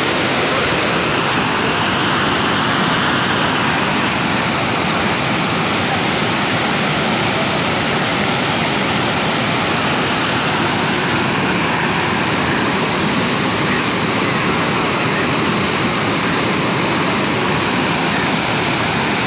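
Floodwater swollen by heavy rain rushing and churning in a torrent under a bridge, a loud, steady rush of water that never lets up.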